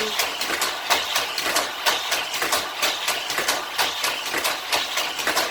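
Hot Wheels Corkscrew Crash track set running: its battery-powered boosters whir while small die-cast cars clatter through the plastic track, a fast, uneven run of clicks and clacks.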